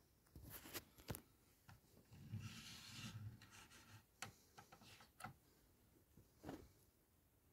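Faint handling noises: a few light clicks and a short rubbing scrape about two seconds in, as a die-cast model bus is turned by hand on a wooden desk.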